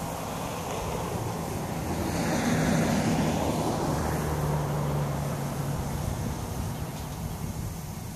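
An engine passing by: a steady low engine hum swells louder with a rush of noise about two to three seconds in, then eases back.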